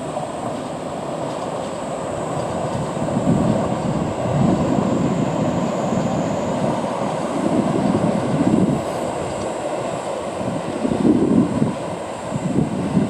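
JR East train running on the line: a continuous rumble of wheels on track that swells and eases in surges, with a thin steady high tone above it.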